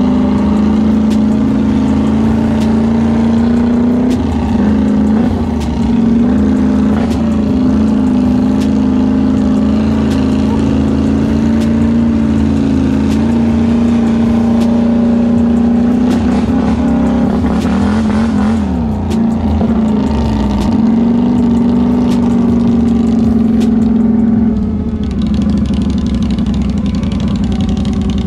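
Polaris Sportsman 850 High Lifter ATV's parallel-twin engine running at a steady trail-riding speed, its pitch dipping and recovering as the throttle is eased off and back on a few times, over a hiss of wind and tyre noise.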